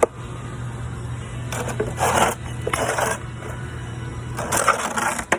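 Metal pieces of a bearing installer tool set being handled, clinking and scraping in three short bursts over a steady low hum.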